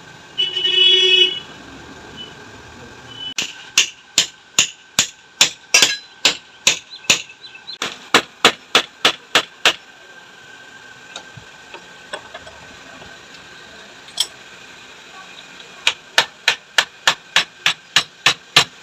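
Rapid hammer blows on the metal body of a motorcycle mono-shock absorber, about three a second in two long runs with a single blow between them, as the shock is punched and riveted closed. About a second in there is a brief loud high-pitched whine.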